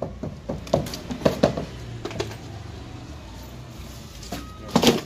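Wooden formwork boards knocking and clattering as they are pried off a freshly cast concrete column with a hammer. There is a quick run of knocks in the first second and a half and one loud knock near the end.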